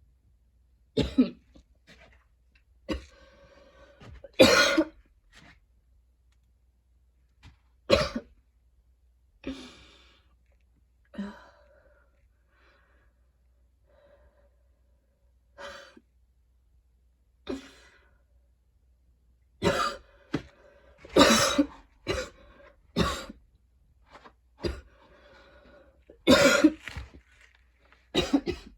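A woman's harsh coughing fit, which she calls painful and choky: single hard coughs a second or few apart, then a louder, closer run of coughs in the last third.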